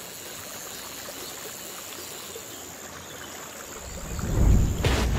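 Logo-reveal sound effects: a steady airy hiss with a thin high whine, then a deep rumbling swell about four seconds in that ends in a sharp hit.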